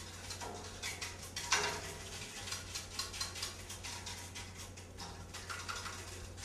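Light hand percussion: a quick, irregular patter of soft taps and clicks, with one sharper strike about a second and a half in.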